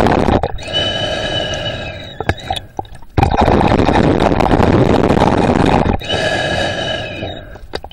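A swimmer's breathing heard underwater, two breath cycles: each a long loud rush of air followed by a softer, fading hollow tone and a brief pause.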